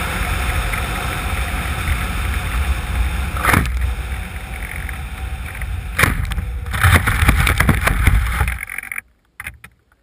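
Wind buffeting the wing-mounted action camera's microphone as the RC plane flies low. The plane hits the snowy ground with a thump about three and a half seconds in and again at about six seconds, then scrapes and rustles as it slides through snow and grass, stopping suddenly about nine seconds in.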